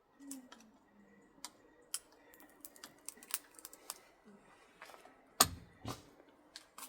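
Scattered light clicks and taps from hand work on an electric motor's wire windings being pushed down and handled for scrapping, with two heavier knocks about half a second apart near the end.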